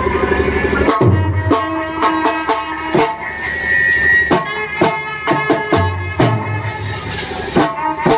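Indian song music with a steady pattern of hand-drum strokes, some with deep booming notes, under held melody tones.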